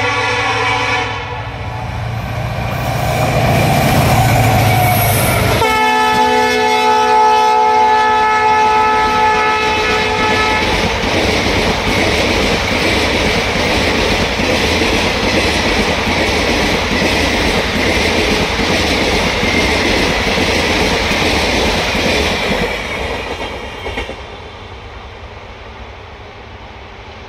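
Indian Railways WDG4 diesel-electric locomotive (EMD 16-cylinder two-stroke) passing at speed with its horn blowing. Its engine rumbles on the approach, and the horn's pitch drops abruptly as it passes about five seconds in; the horn goes on until about ten seconds in. Then the coaches roll by with steady wheel clatter, which fades as the end of the train passes about 24 seconds in.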